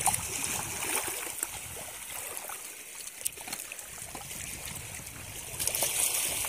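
Shallow seawater sloshing and trickling over rocks as a hand and foot move through it, with small splashes that grow louder near the end.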